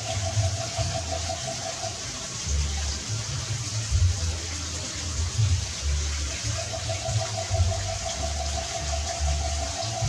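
Steady rushing background noise with irregular low rumbles, and a steady pulsing tone that drops out about two seconds in and comes back after about six and a half seconds.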